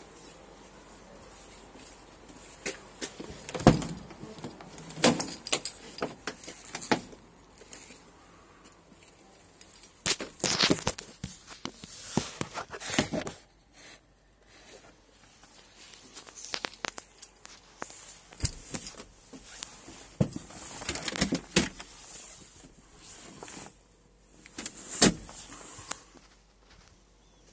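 Keys jangling among scattered clicks, knocks and rattles of handling, loudest about 4 seconds in and again near 25 seconds, with quiet gaps between.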